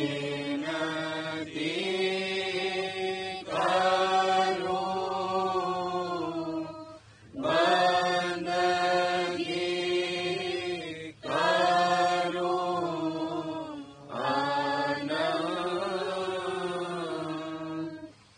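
Devotional Radhasoami shabd (hymn) chanted in Hindi, sung in long melodic phrases of a few seconds each with brief breaks for breath between them.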